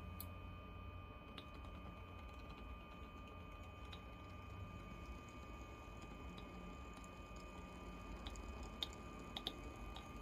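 Two model locomotive chassis with coreless motors crawling along the track at a low speed step under digital decoder control: a faint steady whine with a few light ticks, the ticks coming more often near the end.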